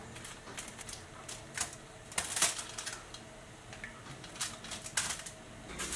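Light, irregular taps and clicks from bread slices being brushed with melted butter and handled on foil-lined baking trays, with a few louder knocks.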